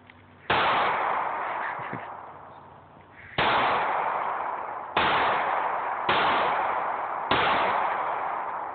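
A pistol is fired five times at uneven intervals, about one to three seconds apart. Each shot is sudden and loud and is followed by a long fading echo.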